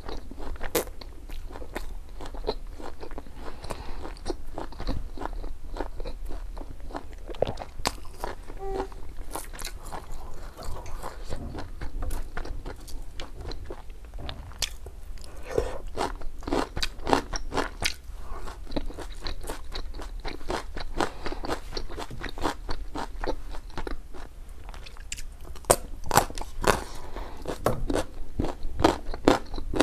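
Close-miked mouth sounds of someone chewing and crunching raw vegetables (leafy greens and carrot slices): rapid crisp crunches, thickest in the middle and again toward the end.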